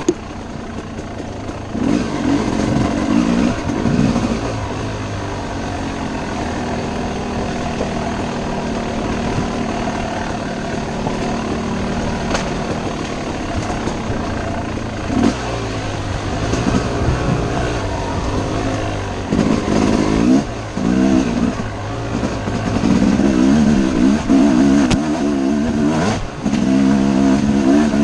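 Yamaha YZ250 two-stroke dirt bike engine revving up and dropping back over and over as it is ridden hard off-road, with the loudest, fastest bursts of throttle in the second half.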